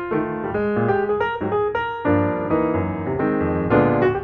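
Background piano music: a melody of single notes, with fuller chords from about halfway in.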